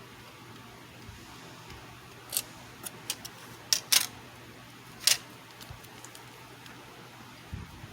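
A series of short, sharp clicks and taps of small hard objects, irregularly spaced and loudest about four seconds in, over a steady faint hiss.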